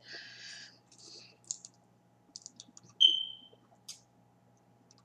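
A soda bottle and cup being handled: a short hiss at the start, scattered clicks and taps, and a short high-pitched ping about three seconds in that fades quickly, the loudest sound.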